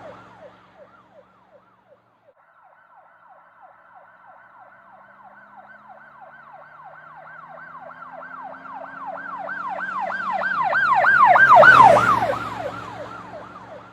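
Police car siren on a fast yelp, a rapid wail of about two to three sweeps a second: a passing siren fades out, then another approaches, grows loud to pass about 12 seconds in and recedes, its pitch and the vehicle's low hum dropping as it goes by.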